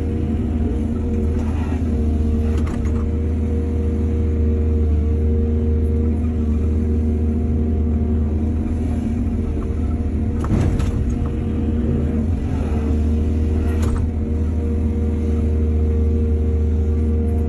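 Heavy diesel engine of a hydraulic excavator running steadily with a deep hum. A few short, louder noises break through: about a second and a half in, near three seconds, around ten and a half seconds and around fourteen seconds.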